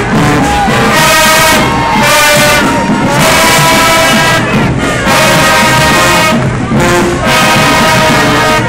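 Marching band brass section (trumpets, trombones and sousaphones) playing loudly, in held notes and chords with short breaks between phrases.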